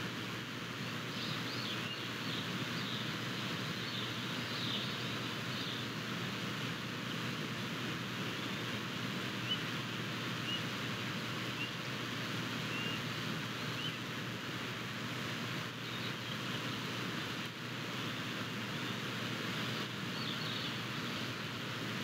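Steady outdoor rushing noise, like wind or distant flowing water, with faint high chirps of small birds now and then and a short thin note repeated about once a second in the middle.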